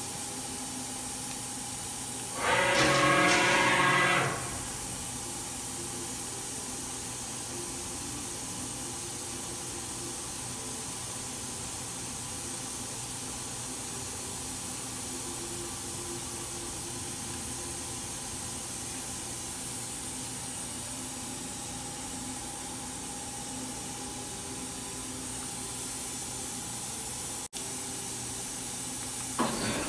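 Daewoo DMV-500 CNC vertical machining center running, a steady hiss and hum with faint whining tones that come and go as its axes traverse. About three seconds in, a louder buzzing tone lasts nearly two seconds.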